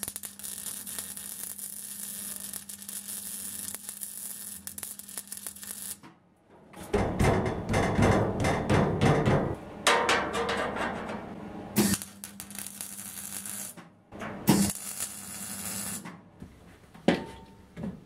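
MIG welder crackling steadily for about six seconds. After a short pause comes a louder, busier stretch of welding and metal handling, with a sharp knock. Another short burst of welding follows, and a few knocks near the end.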